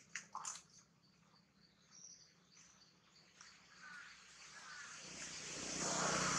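Outdoor forest ambience: a few short animal calls and sharp clicks in the first half-second, faint chirps over a quiet background, then a broad rush of noise that swells over the last second or so.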